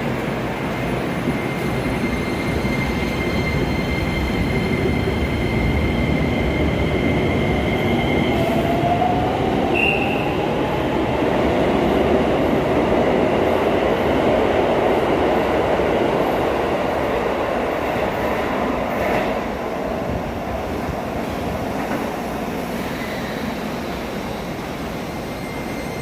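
Keisei Main Line electric train running through the platform: a steady noise of wheels on rail with a thin high squeal, and a motor whine rising in pitch about eight seconds in. The noise builds toward the middle and then slowly eases off.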